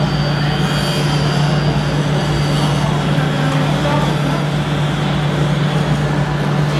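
Steady low hum under a constant wash of crowd noise and indistinct voices, with no single event standing out.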